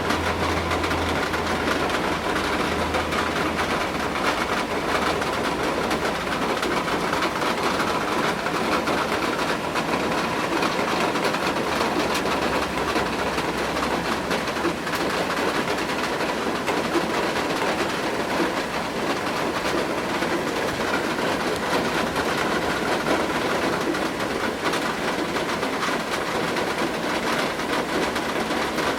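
Steady rain and wind, an even rushing noise with fine scattered ticks of drops.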